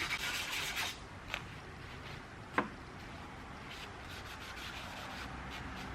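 Sandpaper rubbed by hand on a rusty steel plane blade: quick scrubbing strokes in the first second, two light clicks, then fainter, intermittent rubbing.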